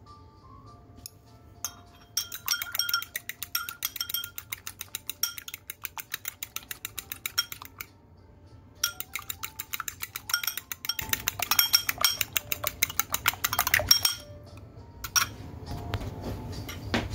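Raw eggs being beaten in a glass bowl, the utensil clinking rapidly against the glass. There are two runs of fast beating with a short pause between them, then a few last taps on the rim.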